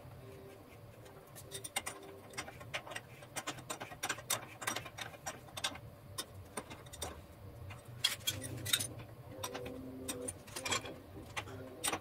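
Hand tools on radiator mounting bolts: a ratchet and a wrench working, giving irregular runs of light metallic clicks, with a few sharper clinks of metal about eight to nine seconds in and again near eleven seconds.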